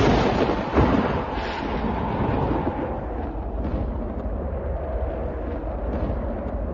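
Thunder: a sharp crack right at the start and a second one under a second in, then a long low rumble that slowly fades.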